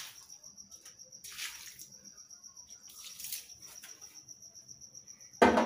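Water splashed across a scrubbed floor to rinse off homemade bleach, in three short swishes about a second and a half apart, over a steady high chirping of crickets. Near the end a louder voice cuts in suddenly.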